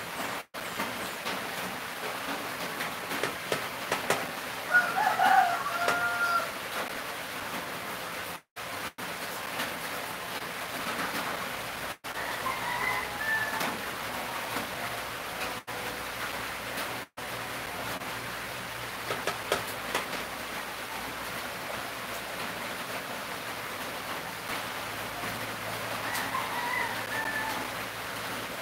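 A rooster crowing three times over a steady hiss: about five seconds in (the loudest), again around thirteen seconds, and once more near the end.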